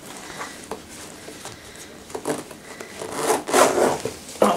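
A leather backpack being handled: rubbing and scraping of the leather and its fittings, louder about three seconds in.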